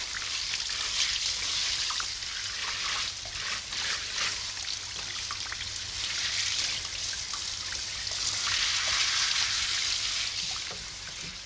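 Water running steadily with a spattering hiss, swelling near the end and then fading.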